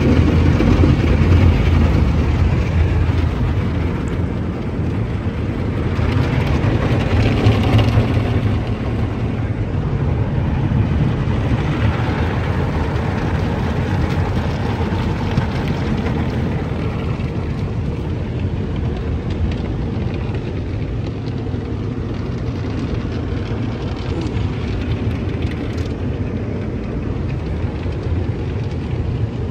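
MacNeil soft-touch tunnel car wash at work, heard from inside the car's cabin: water spray washing over the windshield and body over a steady low rumble, with louder surges about a second in and again around seven seconds.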